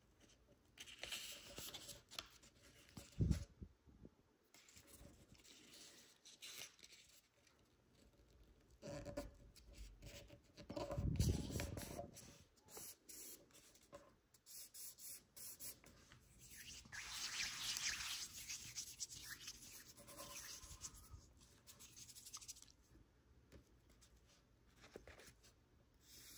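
A square sheet of origami paper being folded by hand, its creases pressed and rubbed with the fingers: soft, irregular rustling and rubbing. There is a short knock about three seconds in and a longer stretch of steady rubbing later on.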